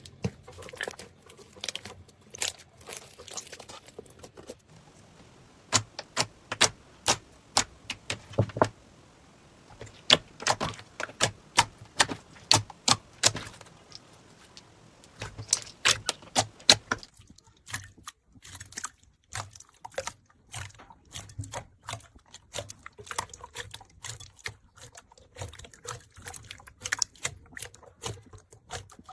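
Slime being squeezed and pressed by hand, giving off sharp clicks and pops in irregular clusters, loudest in two runs a few seconds long, with softer crackling between.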